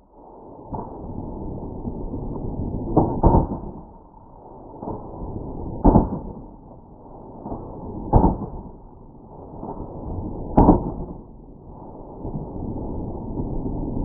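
Slowed-down audio of Franchi SPAS-12 shotgun slug shots and pumpkins being hit: a series of deep, dull booms every two to three seconds, with weaker knocks between them and a steady rushing noise underneath.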